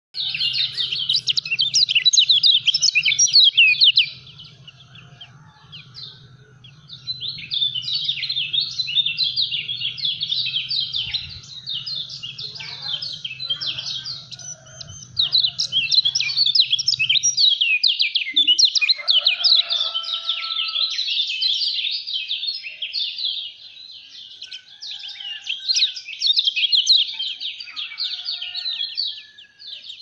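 Caged kecial kuning, a white-eye from Lombok, singing a fast, dense, unbroken run of high chattering notes in long bursts, with a short lull about four seconds in. A faint low hum lies under the first half.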